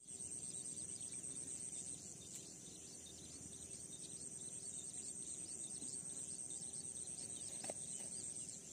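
Steady high-pitched chirring of insects over faint outdoor background noise.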